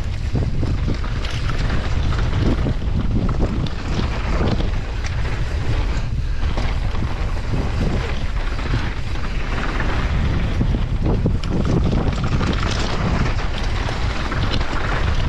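Wind rushing and buffeting on an action camera's microphone during a fast mountain bike descent, a steady low rumble, with tyres crackling over loose gravel and dirt and the bike rattling.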